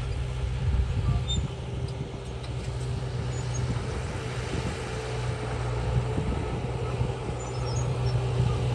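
Diesel engine of heavy earthmoving machinery running steadily with a low hum.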